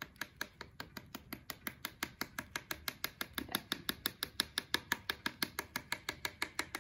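Flat paintbrush loaded with watered-down paint tapped rapidly against the rim of a jar, a steady run of light clicks about seven a second, flicking paint spatter onto paper.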